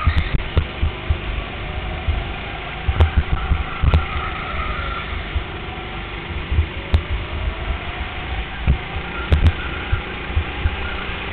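Indoor go-kart's engine running at speed, its pitch slowly rising and falling through the corners, under a heavy low rumble with several sharp knocks.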